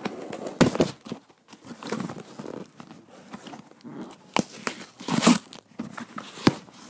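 Parcel packaging being torn and crinkled open by hand: irregular rustling with sharp clicks and crackles, loudest just under a second in and again about five seconds in.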